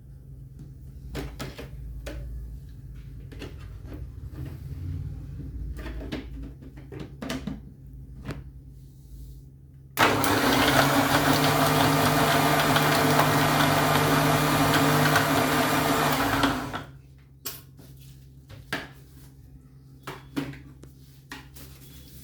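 Electric blender (mixer-grinder) blending chopped amla with water. For about ten seconds there is only a low hum and a few light knocks. Then the motor runs loud and steady for about seven seconds before it stops.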